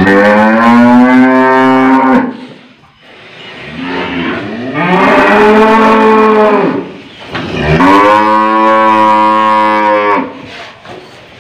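An old cow bellowing loudly three times in long drawn-out calls with short breaks between them, while its head is held and its nose is worked on to fit a nose rope.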